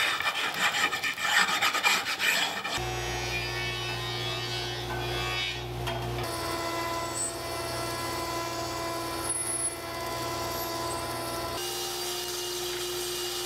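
Chalk scraping along the edges of wenge boards for about the first three seconds. Then a run of short cut-together clips of stationary woodworking machines (a jointer, a thickness planer, a table saw) with their motors humming steadily at a constant pitch. The sound changes abruptly at each cut.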